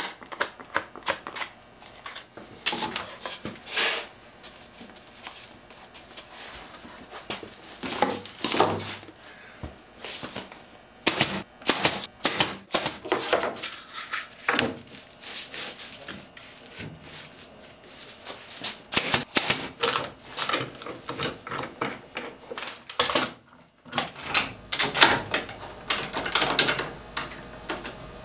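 Clamping a laminated plywood glue-up: runs of sharp clicks and knocks from one-handed bar clamps being ratcheted tight and boards being handled, coming in several clusters.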